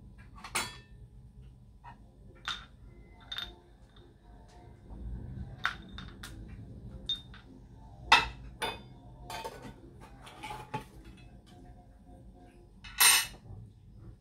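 Stainless steel kitchen canisters and their lids being handled and set down: scattered clinks and knocks of metal, some with a short ring, the sharpest about eight seconds in and a longer, louder clatter near the end.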